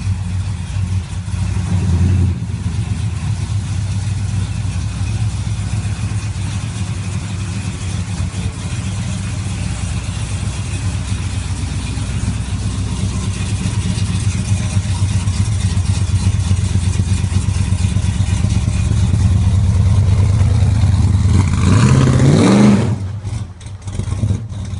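Supercharged V8 engine of a 1969 Dodge Charger running at idle with a steady pulsing beat, then revved once near the end, the pitch climbing sharply before falling back.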